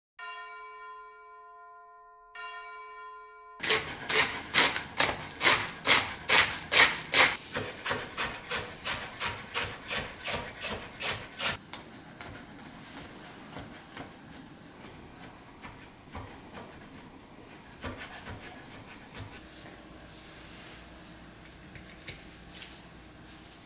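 A held musical tone sounds twice. Then a chef's knife chops steadily on a wooden cutting board, about two and a half strokes a second for some eight seconds, followed by faint knocks and scrapes.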